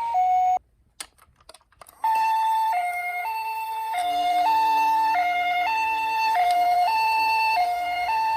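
Toy ambulance's electronic two-tone 'pee-po' siren alternating between a high and a low note. It cuts off about half a second in, a few clicks follow, and it starts again about two seconds in and keeps sounding.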